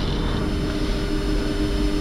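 Steady flight-deck noise of a Boeing 747-400 on the ground with its engines running at idle: a low rumble with two steady hum tones over it.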